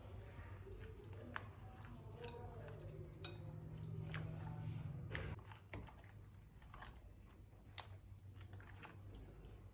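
Slime being handled and mixed close up: faint wet squishing with scattered small clicks and pops. A low hum underneath stops about five seconds in.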